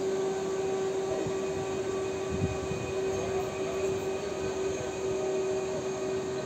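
PESA Elf (EN76) electric multiple unit arriving at low speed, its traction motors giving a steady whine over a low rumble of wheels on rail.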